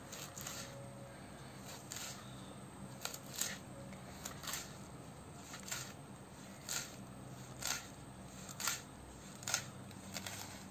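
Kitchen knife chopping green chillies on a cutting board: a sharp tap about once a second, over a faint steady hum.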